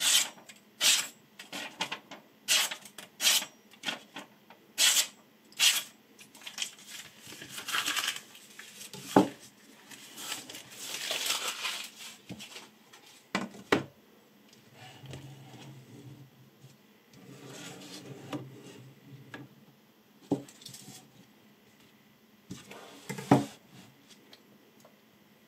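A chef knife slicing through a hand-held sheet of paper in a quick run of short, crisp cuts, a test of the edge's sharpness. Then paper rustles and a few separate knocks sound as knives and a whetstone holder are handled and set down on a table.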